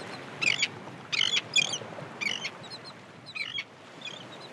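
Birds chirping in short, irregular high calls about one or two a second over a steady soft hiss, growing fainter toward the end.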